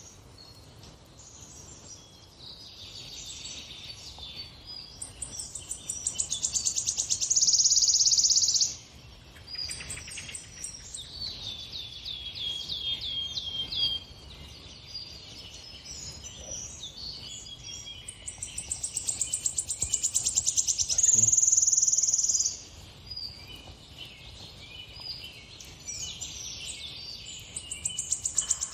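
Songbirds singing: runs of high, clear chirping notes and rapid buzzing trills. Two long trills swell louder over a few seconds and stop abruptly, and another builds near the end.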